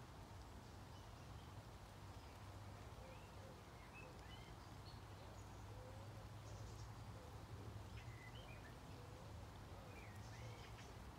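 Quiet outdoor ambience: faint, scattered small bird chirps over a steady low hum.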